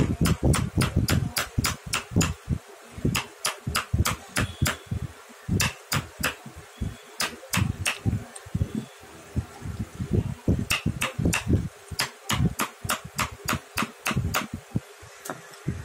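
Wood-carving chisel being tapped with a mallet into a wooden carving. Sharp knocks come in runs of quick strokes, about four a second, broken by short pauses.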